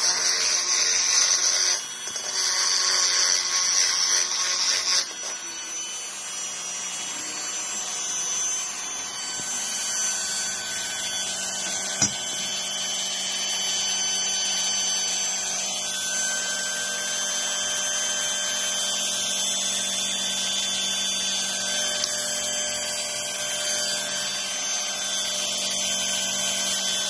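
Corded handheld rotary tool grinding the aluminium of an Airsal moped cylinder, porting it for tuning: loud grinding for about five seconds with a short break about two seconds in, then the tool runs on with a steady whine, not cutting. A single sharp tap about twelve seconds in.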